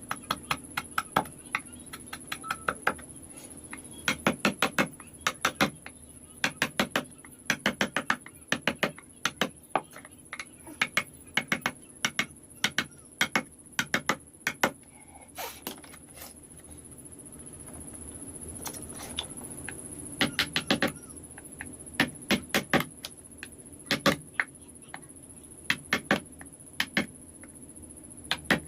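Light, quick taps driving a wood-carving chisel into wood, in runs of several strikes a second with short pauses between runs.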